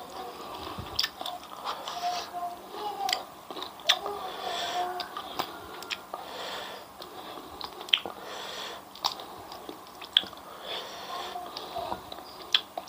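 Close-miked chewing of crunchy fried food, wet mouth sounds broken by sharp crunches at irregular moments, roughly one a second.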